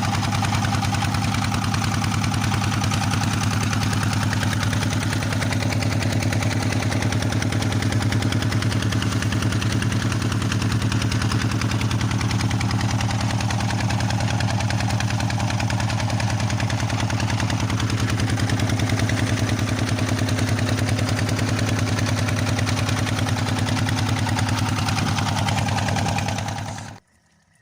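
Small fishing boat's engine running steadily with a regular low pulsing beat; it cuts off suddenly near the end.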